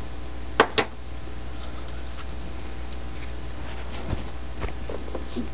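Two sharp clicks about a fifth of a second apart, then a few faint ticks, from tweezers and thin wire being handled on a cutting mat. A steady low hum runs underneath.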